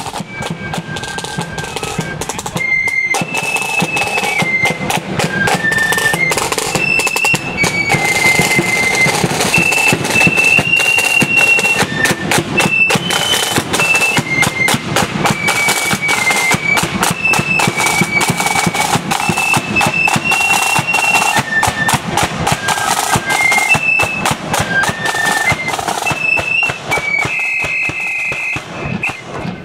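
Marching flute band playing a march: massed flutes carrying a high melody over rapid side-drum strokes and bass drum, growing louder over the first few seconds.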